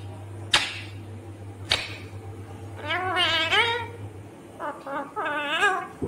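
Indian ringneck parakeet making two warbling, wavering calls about a second long each, in the second half. Two sharp clicks come before them.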